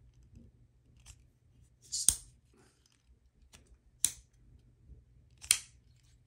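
Chris Reeve Large Sebenza 31 titanium frame-lock folding knife being opened and closed by hand, its pivot screw just loosened. Three sharp metallic clicks come about a second and a half apart, with a fainter click before them.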